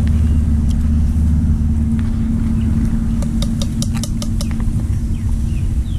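A steady low motor hum, with a quick run of sharp clicks just past the middle.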